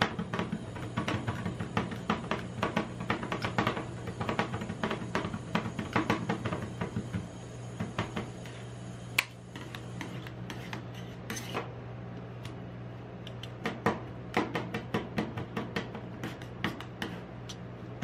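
Two metal spatulas rapidly chopping and clacking on the steel plate of a rolled-ice-cream cold pan, over a steady low hum. Past the middle the chopping gives way to a few scattered taps and scrapes, then the fast chopping starts again near the end.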